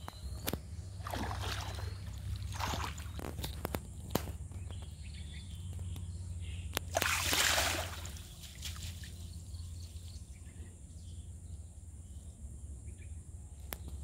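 Water sloshing and splashing as a cast net is hauled in through a pond, with a few surges and the loudest about seven seconds in as the net is lifted out and water pours off it. A steady low hum sits underneath.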